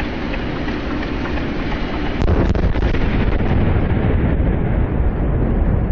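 Explosive charges detonating to blast a rock tunnel face: a few sharp cracks about two seconds in, followed by a deep rumble that carries on.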